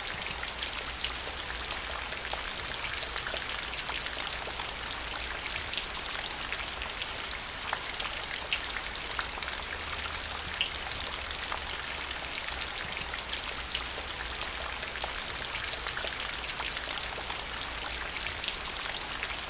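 Steady rain falling on wet paving stones and puddles, an even hiss dotted with the small ticks of single drops.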